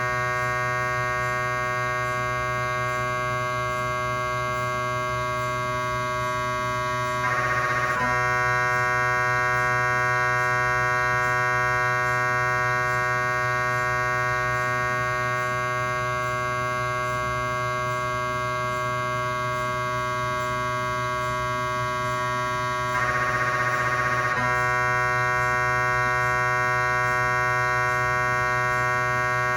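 GE 3T MRI scanner's gradient coils buzzing steadily through a cardiac scan sequence, a fixed electronic tone with many overtones over a low hum. Twice, about 7 and 23 seconds in, a short denser burst lasts about a second and the buzz steps up slightly louder.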